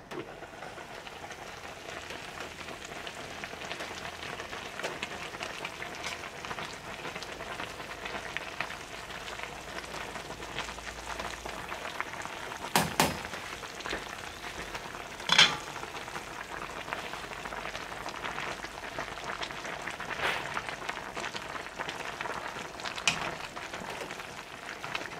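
A pot of vegetable and chicken soup simmering on a gas stove with a steady bubbling hiss, while a metal slotted spatula stirs spinach down into it. A few sharp metal clinks against the pot stand out a little after halfway and again near the end.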